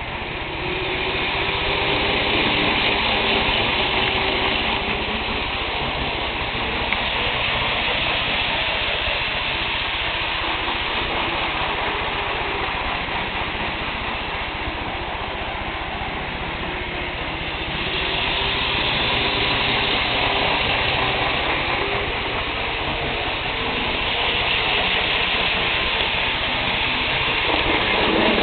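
N-scale model of the AVE Series 100 train running on its track: a steady whirring and rolling hiss from the small motor and wheels, swelling and fading several times as the train passes close to the microphone and moves away.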